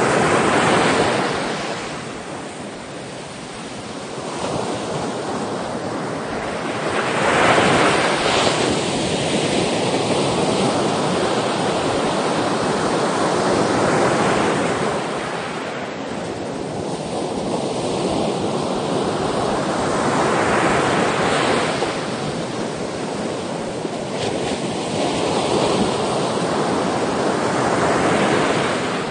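Ocean waves breaking, the surf swelling and receding in slow surges about every seven seconds.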